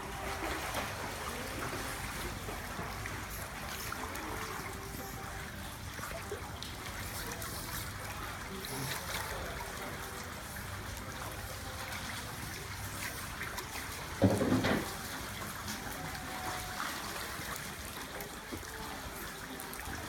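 Water trickling steadily in the penguin pool, with a brief louder sound about fourteen seconds in.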